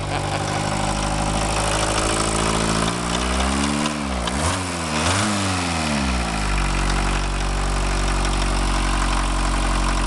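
Volkswagen Rabbit pickup's four-cylinder diesel engine running at idle, its injection pump freshly primed with diesel after losing prime. About three seconds in it is revved up twice, then settles back to a steady idle.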